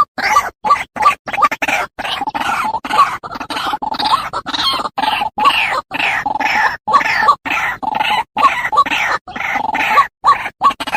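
White-breasted waterhen (ruak-ruak) calling over and over in harsh, croaking notes, a dense run of calls broken by short, abrupt silences: a recorded lure call played to attract waterhens.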